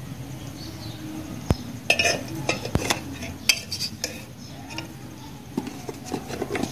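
A steel spoon clinking and tapping against a plastic bowl and spice containers, a few sharp clicks and knocks scattered through, as ground spices are spooned onto dry gram flour.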